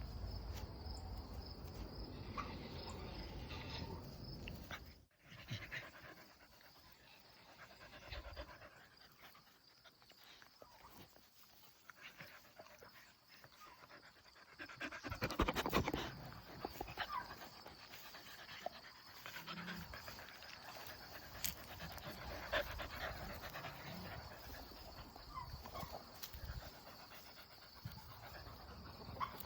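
Corgi panting, with uneven scuffling noise throughout and a louder burst about halfway through.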